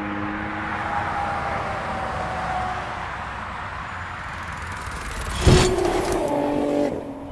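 Twin-turbo Nissan 350Z's V6 engine running, its pitch sliding slowly down. About five and a half seconds in there is a sharp loud crack, then a steady higher engine note that stops shortly before the end.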